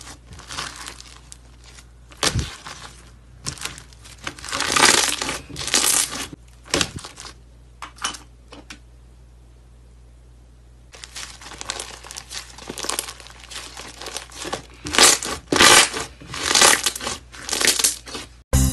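Hands squeezing and pressing soft slime with small beads mixed in, in bursts of crackling, crinkling squishes. There is a quiet pause of about two seconds around the middle.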